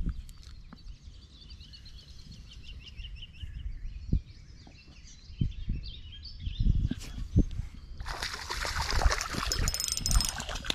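Birds singing in short repeated chirps over faint handling bumps of the rod and spinning reel. About eight seconds in, a loud rushing, crackling noise sets in as a fish is hooked and reeled in.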